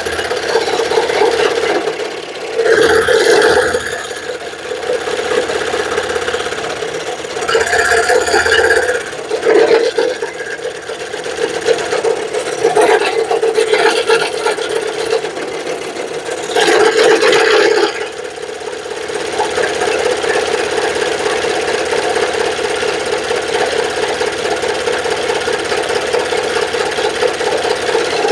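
Electric saw running steadily while cutting wood, with several louder stretches of about a second as the blade bites into the cut.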